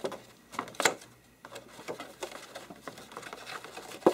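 Posterboard being folded and handled: intermittent crisp paper rustling and scraping, with a sharp snap about a second in and a louder sharp tap near the end.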